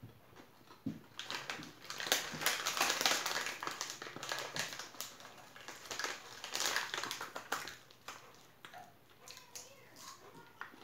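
Plastic crisp packet crinkling and rustling as it is handled and a hand rummages inside for crisps, on and off, fading to quieter rustling in the last few seconds.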